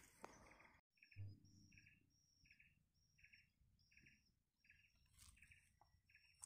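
Faint high animal call, repeated evenly about three times every two seconds, starting about a second in.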